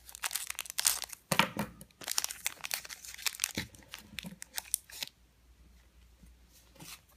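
Foil wrapper of a Pokémon booster pack crinkling and crackling as it is cut open with scissors and handled. The crackling stops about five seconds in.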